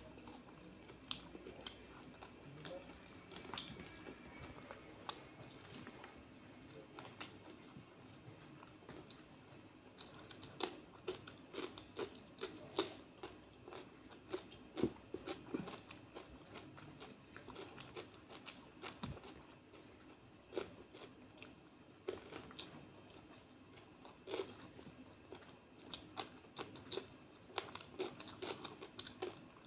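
Close-miked eating sounds of fried fish and rice being eaten by hand: wet chewing, lip smacks and crisp crunches in an irregular run of clicks, busiest about a third of the way in and again near the end.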